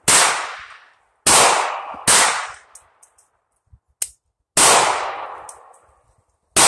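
Semi-automatic pistol fired five times at an uneven pace, the last shot right at the end, each sharp crack trailing off in about a second of echo. A short click sounds between the third and fourth shots.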